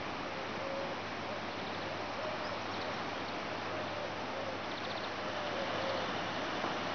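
Evening outdoor ambience: a steady hiss, with faint short calls repeating about once a second and a few faint rapid high chirps from birds or insects.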